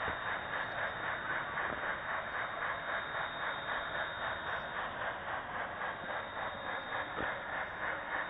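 Model railway train running along the track, heard through a small webcam microphone riding in a wagon at the front of the train: a steady rattling hum of motor and wheels on rail with a regular pulsing, and a single click about seven seconds in.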